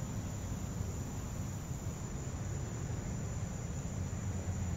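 Steady outdoor background: a low rumble and even hiss with a thin, steady high-pitched tone.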